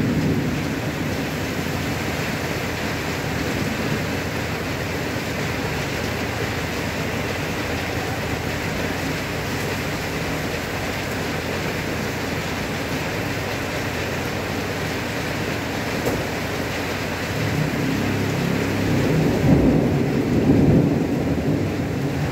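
Heavy rain pouring steadily in a thunderstorm, a dense even hiss. Low thunder rumbles fade at the very start and build again for several seconds near the end.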